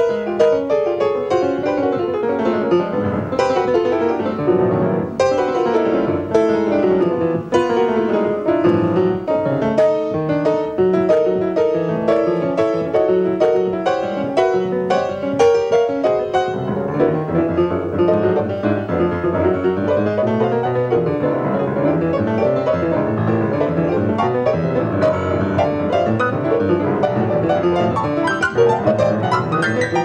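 Solo piano played in a free-jazz manner: fast, dense runs of notes in the middle register. About halfway through, the playing thickens into a lower, heavier mass of notes.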